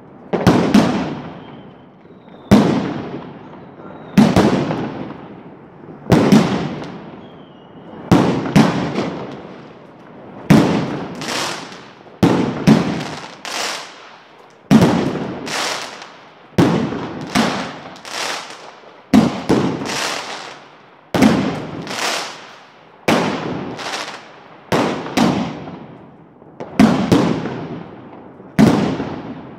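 Aerial fireworks bursting overhead in a steady string of loud bangs, roughly one every second or two and sometimes in quick pairs, each trailing off in a rolling echo.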